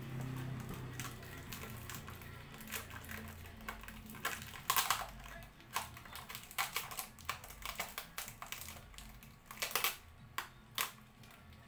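Parcel packaging being handled and pulled apart: irregular crackles and sharp clicks of plastic and tape, with louder clusters about five seconds in and again near the end.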